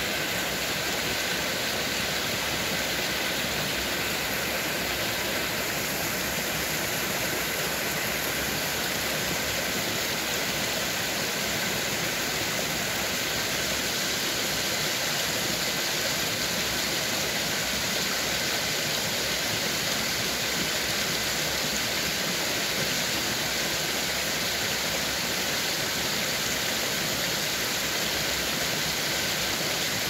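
Small rocky stream rushing and splashing over boulders down a low cascade: a steady, unbroken rush of water.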